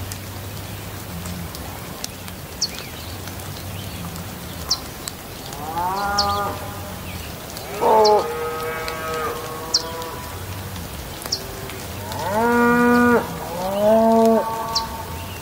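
Steady rain hiss under a low hum, with four long, drawn-out animal calls in the second half, the loudest sounds, each rising at the start and then held. Faint short high chirps come every second or two.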